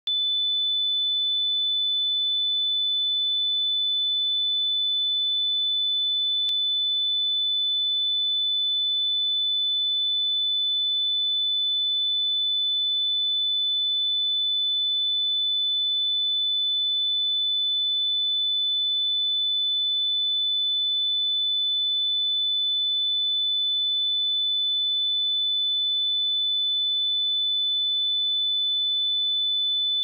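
A 3501 Hz sine-wave test tone: one steady, high-pitched pure tone that holds the same pitch and level throughout.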